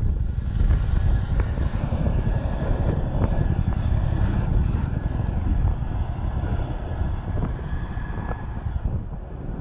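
CH-47 Chinook helicopter running, with a steady turbine whine and rotor rumble, mixed with wind buffeting the microphone.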